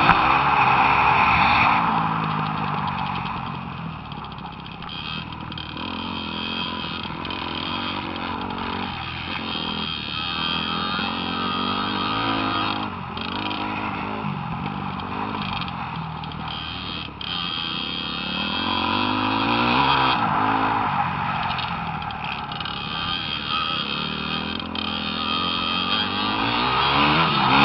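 Small youth dirt bike engine riding a motocross track, its pitch rising and falling over and over with the throttle. Loud at the start, quieter for a while, and loud again near the end.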